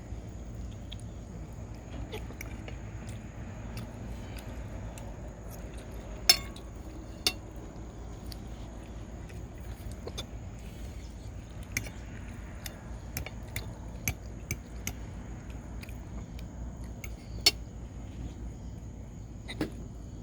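Hiccups from a person, likely a child: about half a dozen short, sharp hiccups at irregular intervals several seconds apart, the loudest about six seconds in, over a steady low hum.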